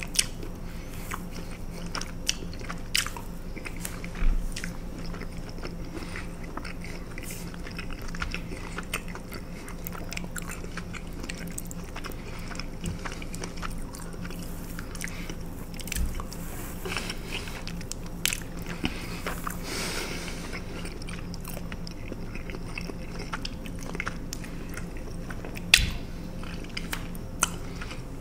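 Close-miked mouth sounds of someone chewing fettuccine alfredo with lips smacking: a run of wet clicks and smacks. A few louder knocks stand out, about four seconds in, near the middle and near the end.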